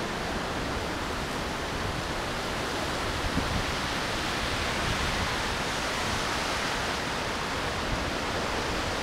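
Strong wind blowing as a steady, even rushing hiss, without the low buffeting on the microphone that comes just before and after.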